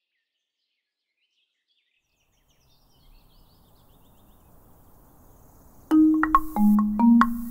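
Marimba played with four yarn mallets: about six seconds in, low ringing notes begin, mixed with sharp taps on a wood block mounted across the bars. Before that, only faint outdoor ambience with a few faint bird chirps.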